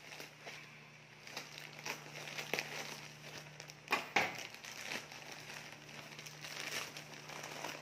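Plastic courier mailer bag crinkling as it is cut with scissors and pulled open by hand, with a louder crackle about four seconds in.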